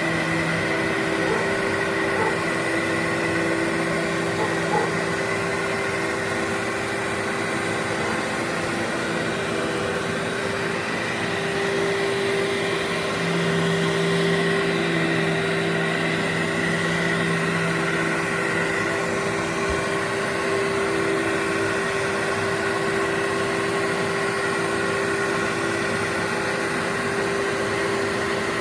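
Workhorse carpet vacuum running steadily on its low setting while pre-vacuuming carpet, a continuous motor hum and airflow whoosh whose pitched tones shift slightly as it is worked over the pile.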